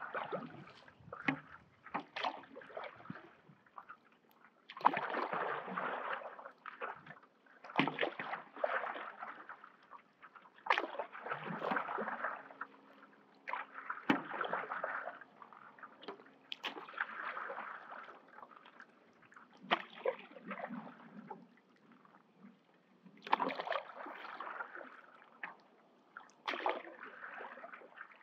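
Stand-up paddleboard paddle taking slow strokes through lake water: a sloshing swish about every three seconds, with small splashes and drips between strokes.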